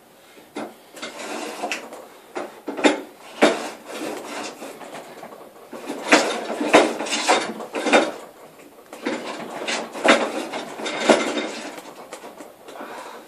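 Record 050 combination plane cutting a bead along a wooden board: about a dozen short planing strokes at an uneven pace, each a brief rasping swish of the blade taking a shaving.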